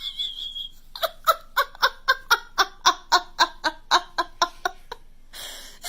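A voice giggling in a fast, even run of short pitched pulses, about four to five a second, lasting roughly four seconds.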